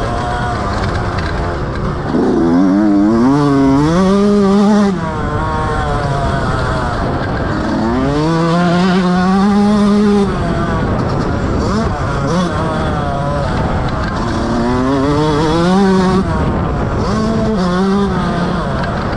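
Motocross bike engine heard on board, revving up in long rising pulls and dropping back sharply as the throttle is opened and closed. There are three big pulls, starting about two, eight and fifteen seconds in.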